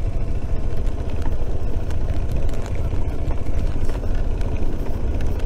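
Adventure motorcycle on the move: a steady, low rumble of wind and engine noise with no break.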